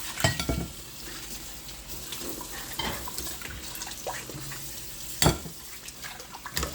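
Scattered clicks and knocks of kitchen utensils handling cooked chicken pieces, the loudest knock about five seconds in, over a faint steady hiss.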